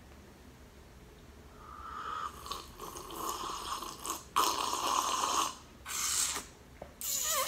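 Loud slurping from a mug: several long, noisy sips with short breaks between them, starting about two seconds in.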